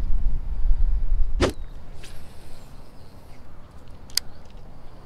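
A cast with a baitcasting rod and reel: a sharp swish, then the hiss of line running off the spinning spool for about a second, and a click a second later as the reel is engaged. Wind rumbles on the microphone at the start.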